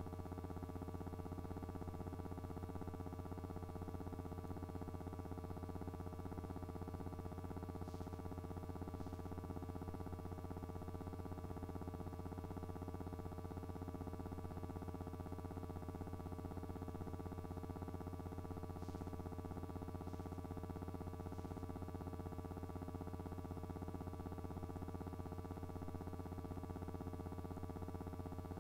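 Steady electrical hum made of a deep low note and several fixed higher tones that never shift in pitch or level, with a few faint ticks.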